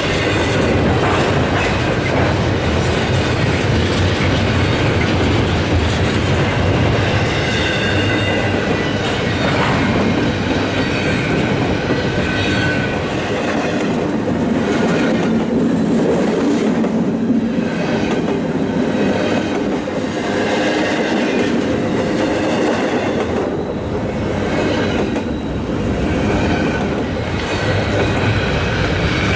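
A train rolling past, its wheels clacking over the rails, with faint high-pitched wheel squeal at times. A deep rumble is strong through the first half, fades in the middle, and returns near the end.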